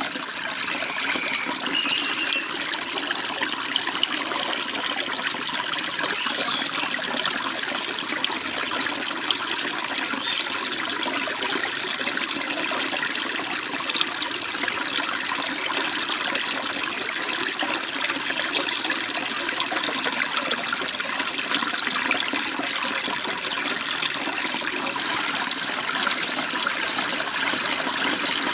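Stream water flowing and babbling steadily, a constant rushing splash with no let-up.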